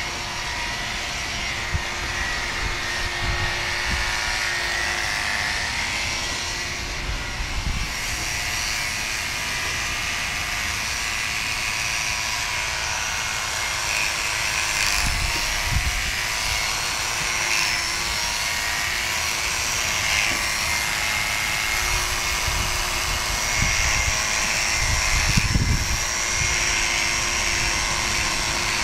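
Electric horse clippers running with a steady buzz while trimming the hair around a horse's ears. There are a few low thumps about halfway through and again near the end.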